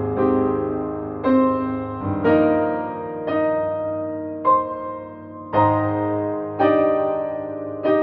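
Slow piano music, with a new chord struck about once a second and left to ring out.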